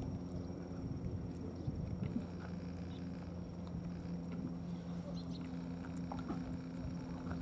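A steady low engine hum runs throughout, with faint scattered clicks of two cats chewing wet food from plastic bowls.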